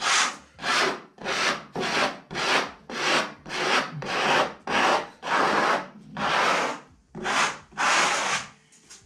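A small plastic spatula scraping back and forth across the ridges of a textured decorative-plaster panel, about two strokes a second, slowing slightly and stopping near the end. The scraping wears the tinted top coat off the raised relief to bring out the pattern.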